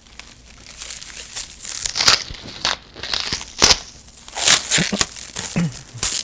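Plastic wrap crinkling and tearing in irregular bursts as it is pulled off a bundle of paperback books.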